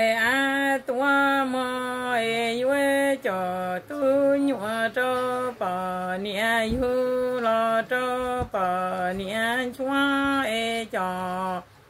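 A woman's solo unaccompanied chant-like singing, likely in Hmong: long held notes in a fairly low range with wavering ornaments between them, in phrases broken by short breaths. It stops shortly before the end.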